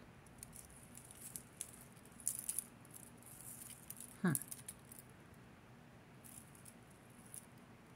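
Costume jewelry handled by hand: necklaces clicking and jingling lightly in scattered little runs of taps. About four seconds in there is one brief vocal sound that slides down in pitch.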